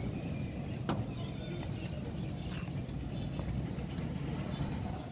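Outdoor background: a steady low rumble, with faint bird chirps and one sharp click about a second in.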